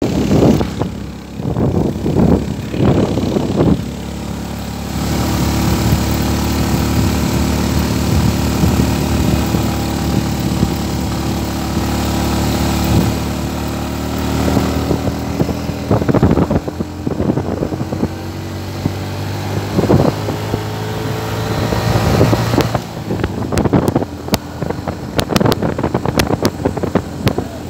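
Motorbike engine running steadily as the bike climbs a hill road, its note rising slowly, with gusts of wind rumbling on the microphone at the start and again near the end.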